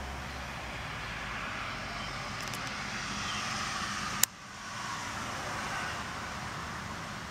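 Steady hum of distant road traffic, swelling and easing slowly, with a single sharp click about four seconds in.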